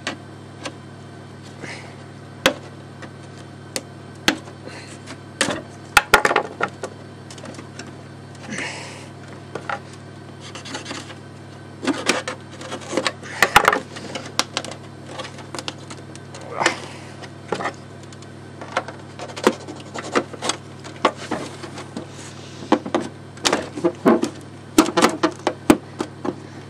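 Irregular clicks, taps and scrapes of hard plastic headlight parts being handled and pried at on a wooden workbench while the glued lens is worked loose from the housing. The clicks come in scattered clusters, busier in the second half, over a steady low hum.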